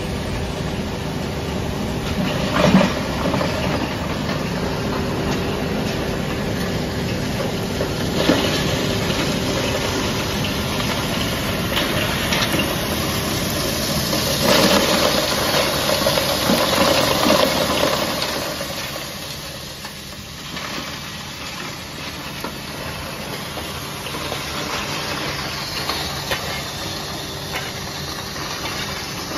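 Charcoal hammer crusher running: a steady electric-motor hum under a hissing, rattling grind as charcoal lumps are smashed to powder, with a few sharp knocks. The noise grows louder around the middle and drops off about two-thirds of the way through.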